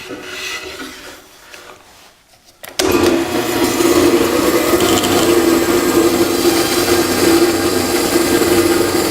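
Bandsaw switched on about three seconds in, then running steadily with a constant hum.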